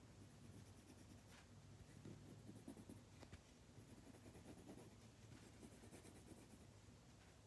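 Faint scratching of a pencil sketching on lined notebook paper, in short irregular strokes.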